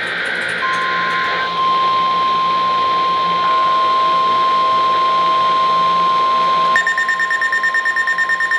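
Emergency Alert System weekly test on NOAA Weather Radio. The SAME digital header tones end about a second and a half in. A steady single-pitch warning alarm tone starts just under a second in and holds. Near the end a weather-radio receiver's alert alarm cuts in, beeping rapidly, about five beeps a second.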